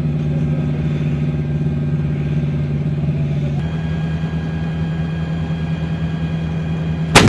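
M109 Paladin self-propelled howitzer's diesel engine running steadily. Near the end there is one sharp, loud bang from the gun firing.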